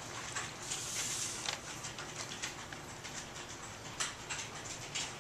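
Paper rustling, with scattered light taps and clicks as paper slides are handled.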